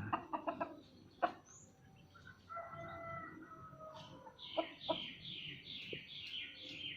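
A rooster crowing once, faintly, about two and a half seconds in, followed from about four seconds in by a small bird's rapid, repeated high chirping, about five notes a second. A few light clicks near the start.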